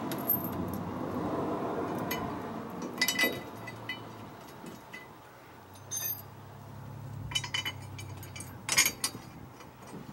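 Steel hardware clinking: U-bolts, nuts and the steel pinion guard knocking together as the guard is hung on a Ford 9-inch rear axle. There are a few separate clinks, with a cluster of them near the end.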